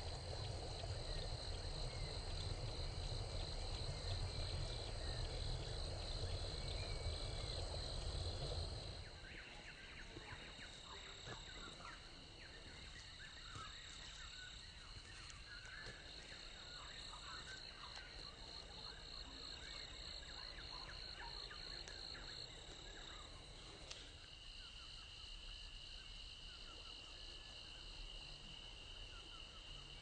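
Rice-field ambience: insects trilling steadily in high, continuous tones. For the first nine seconds or so, wind rumbles on the microphone. After that the sound is quieter, with scattered short chirping calls over the insect trill.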